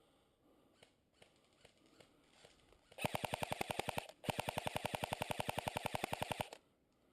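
Airsoft electric gun firing on full auto: a short burst of about a second, a brief pause, then a longer burst of about two seconds, each a rapid, even rattle of shots.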